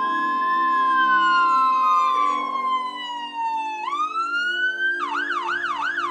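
Emergency-vehicle siren sound effect: several siren wails sliding slowly up and down in pitch, overlapping, then about five seconds in switching to a fast yelp sweeping up and down about three or four times a second.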